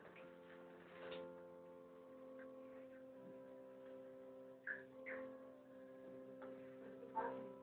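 Faint soft background music of long held chords, changing chord about three seconds in, with a few brief knocks near the end.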